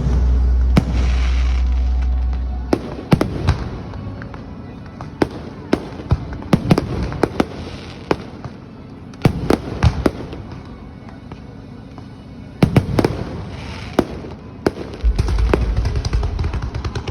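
Firecrackers and fireworks going off in sharp, irregular bangs, sometimes several in quick succession. A deep rumble underlies the first few seconds and returns near the end.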